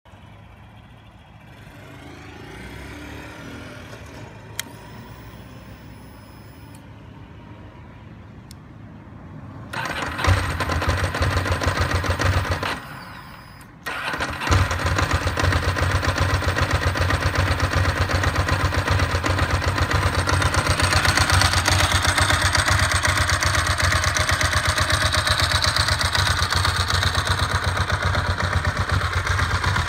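Ducati Monster S4's L-twin engine: after a stretch of faint noise it starts about ten seconds in, runs for a couple of seconds and stops, then is started again about fourteen seconds in and idles steadily.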